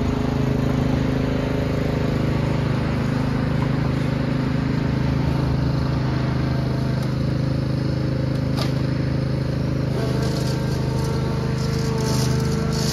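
Riding lawn tractor engine running steadily while towing a dethatcher across the lawn, with some light rattling in the last few seconds.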